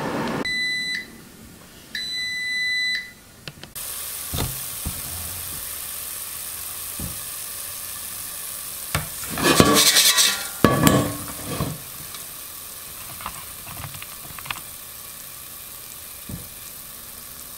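Cook's Essentials air fryer finishing its timer: the fan stops and it beeps twice, a high steady tone each time. Then the basket of hot curly fries is pulled out and sizzles, with a loud burst of clattering about ten seconds in.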